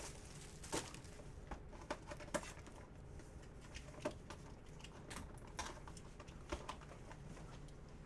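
Faint, scattered light clicks and rustles as a box of trading cards and its packs are handled and opened.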